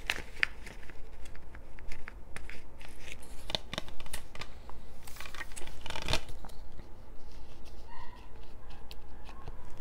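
A plastic Blu-ray case and its paper cover-art sheet being handled on a table: scattered light clicks, taps and scrapes, the sharpest knock about six seconds in.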